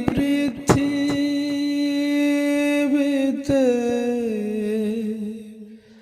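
A solo voice singing a slow Bengali song in long, held notes, with a few sharp clicks in the first second. Midway a new note slides downward and fades away just before the end.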